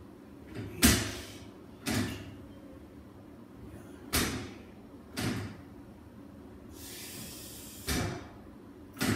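Folding ab-crunch bench clunking as its spring-loaded backrest tilts back and returns with each sit-up: six sharp knocks, in pairs about a second apart, with the pairs a few seconds apart.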